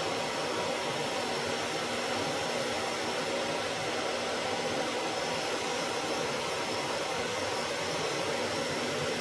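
Steady rushing air noise of a running fan-type machine, with a faint hum.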